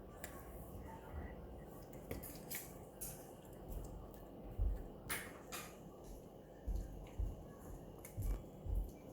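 A dog gnawing on a chew stick: irregular crunching clicks, with soft low thumps in the second half.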